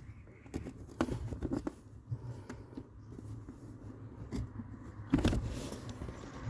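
Plastic footwell trim panel being worked loose by hand, its locating pins pulling out: scattered small clicks and scrapes of plastic, with a louder scraping knock about five seconds in.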